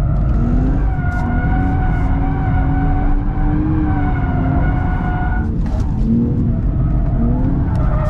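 Nissan Fairlady Z's twin-turbo V6 working hard through a NISMO stainless sports exhaust, its pitch rising and falling as the throttle is worked, with the tyres squealing in a long slide that breaks off about five and a half seconds in.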